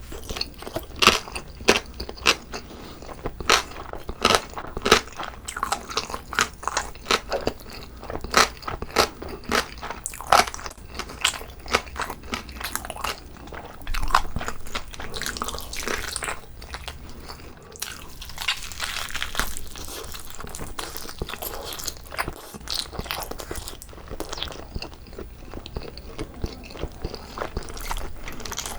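Close-miked eating of whole jokbal (braised pork knuckle): biting and chewing with many sharp crunchy clicks, turning to a softer, wetter run of chewing past the middle.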